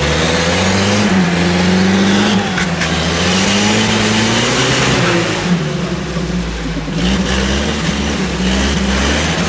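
UAZ-469 off-roader's engine working under load on a muddy slope, its revs rising and falling with the throttle.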